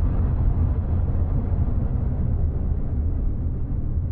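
Deep, steady rumble of a cinematic intro sound effect. It slowly fades and grows duller, with its upper part dying away.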